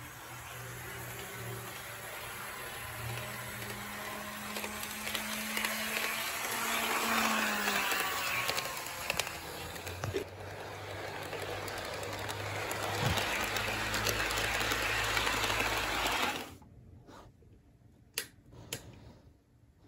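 HO-gauge model train running on sectional track: a motor hum under the rumble of the wheels, growing louder. There is a break about ten seconds in, then a 0 series Shinkansen model runs on and the sound stops suddenly a few seconds before the end, leaving a few faint clicks.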